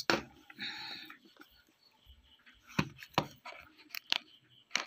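A few sharp clicks and knocks, scattered and irregular, with a short rustle about half a second in: steel kitchen bowls and utensils being handled and set down on a wooden table.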